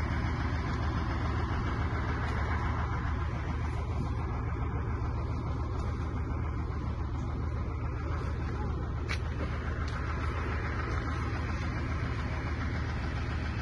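An engine running steadily at idle, a low even drone with no change in speed.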